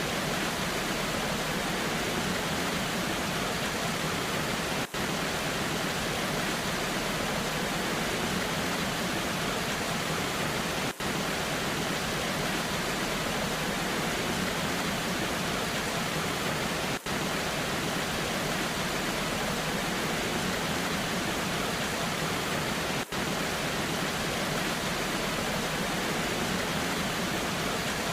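Steady, even rush of a waterfall in the rain, hissing across the whole range with no distinct events, broken only by a very brief dip in level about every six seconds.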